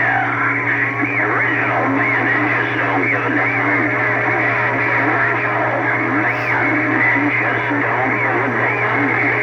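CB radio receiver on a crowded channel: many distant stations overlapping at once, heard as garbled, warbling voices and whistling tones over a steady hum and hiss. It is the interference the operators call "all kind of noise" and "rough and tough" in the radio.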